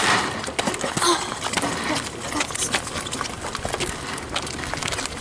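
Go-kart being pushed by hand across asphalt: small tyres rolling and the steel frame rattling, with many small clicks and knocks throughout.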